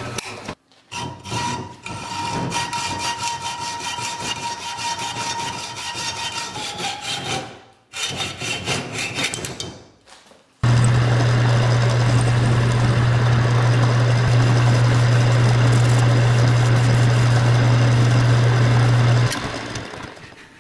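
Rhythmic scraping strokes of a hand tool working a small steel pin held in a vise. About halfway through, a metal lathe takes over: it runs loud and steady with a strong low hum, then fades near the end.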